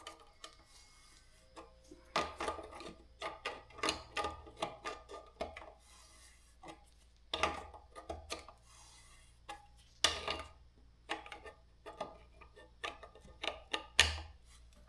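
Irregular metal clicks and clinks of a bottom-bracket tool and wrench working a threaded bottom-bracket cup into a steel bicycle frame, in clusters with short pauses.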